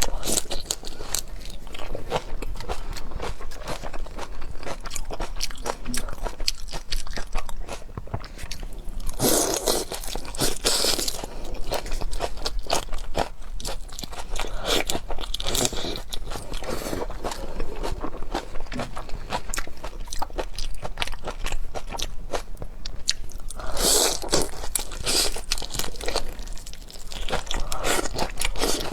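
Close-miked eating of seafood: steady crunching, biting and chewing with many small crackles, and a few louder crunchy stretches along the way.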